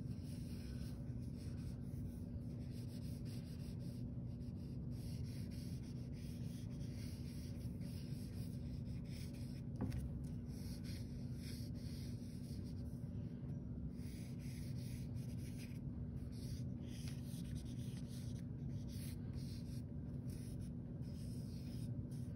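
Stick of charcoal scratching and rubbing across drawing paper in quick repeated sketching strokes, over a steady low hum. One light tap about ten seconds in.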